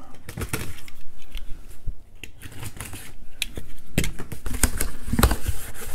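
Box cutter slicing the packing tape on a cardboard shipping box, with the tape peeling and the cardboard being handled: irregular scratchy clicks and rustles, and a few louder knocks of cardboard about four to five seconds in.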